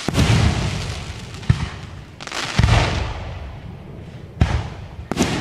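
Aerial fireworks bursting in quick succession: about five loud booms in a few seconds, each trailing off before the next.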